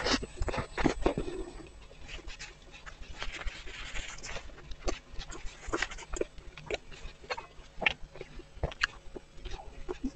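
Close-miked eating of a soft pastry: wet chewing, lip smacks and sticky mouth clicks, with a brief rustle of plastic-gloved hands tearing the pastry apart partway through.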